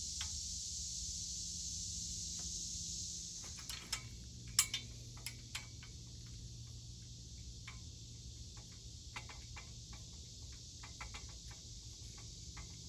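Small wrench working a bolt on a steel ladder-stand section: irregular light metal clicks and ticks from about four seconds in, with one sharper clack soon after they start. Before that, a steady high insect buzz, which fades out a little over three seconds in.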